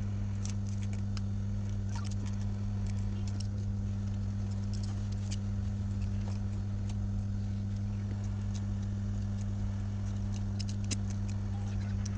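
Steady low electrical hum, with scattered light clicks and taps of small tools working on a phone's back glass.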